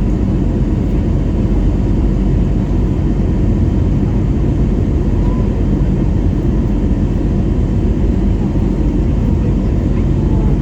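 Steady low rumble of an Airbus A321neo's engines and rushing air, heard from inside the passenger cabin.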